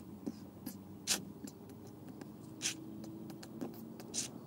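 Light, irregular clicks and scratches from handling a spinning rod and reel, with a faint steady low hum underneath.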